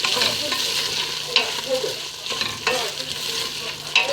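Rice and peas frying in melted ghee in a pot, sizzling steadily as they are stirred, with a spoon scraping the pot three times about a second apart.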